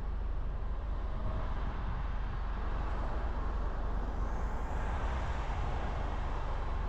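Traffic heard from a car stopped at a junction: a steady low rumble, with a box truck crossing ahead whose engine and tyre noise rises about three seconds in and fades near the end.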